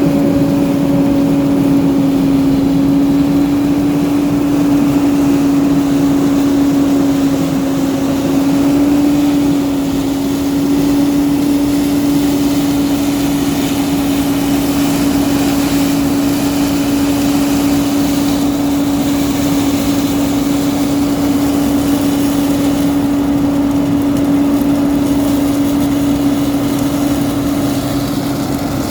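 Heavy diesel engine running steadily at a constant speed, a continuous even hum with no change in pitch.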